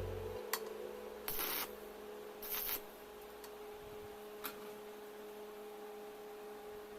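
Background music dies away at the start, leaving a faint steady hum. Two sharp clicks and two brief hissing noises come over the hum.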